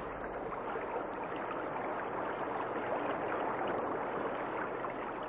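Steady rushing of running water, like a stream, as a recorded sound effect.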